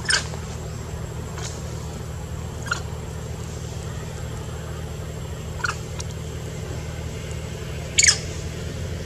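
A young macaque's short, high-pitched squeaks, a few seconds apart and the loudest near the end, over a steady low hum.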